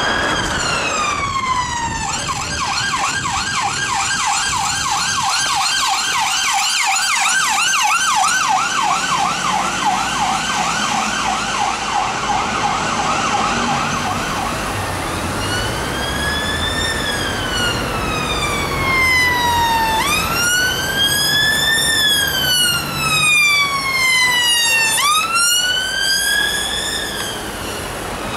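Emergency vehicle's electronic siren. It starts on a falling wail, switches to a fast yelp for about twelve seconds, then goes back to a slow rising-and-falling wail for the rest.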